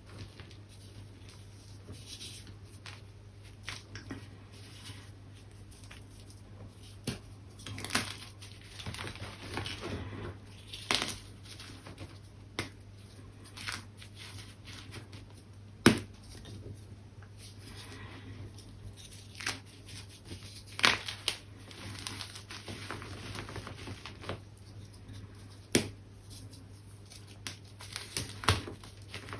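Gym chalk being crushed: irregular dry crunches and crumbling, with a few sharp cracks, the loudest about sixteen seconds in.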